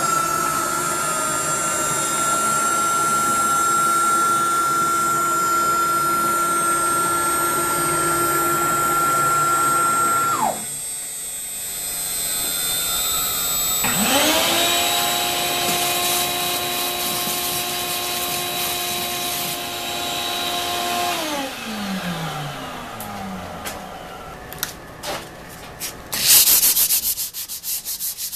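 CNC router spindle running with a steady high whine as it finishes cutting holes in an MDF vacuum-fixture template, then spinning down about ten seconds in. A few seconds later a vacuum motor starts, runs for about seven seconds and winds down with falling pitch. Near the end, a sanding block rubs back and forth across the MDF.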